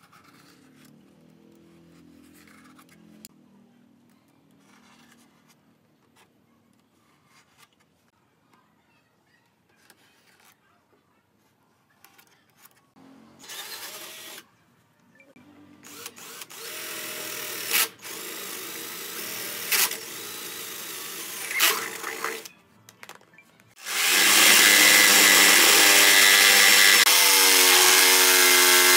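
Cordless drill running in several short bursts into a pine frame, then from about 24 s a jigsaw cutting a curve through the pine board, loud and steady, its pitch wavering as the blade takes load. Before that, only faint small clicks of hand work.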